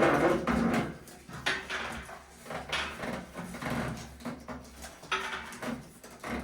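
A few short, scattered knocks and creaks of handling, over a low steady hum.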